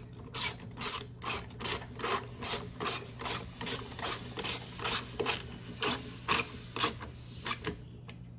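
Socket ratchet worked back and forth in quick, even strokes, about two and a half a second, each stroke a short ratcheting rasp, stopping near the end.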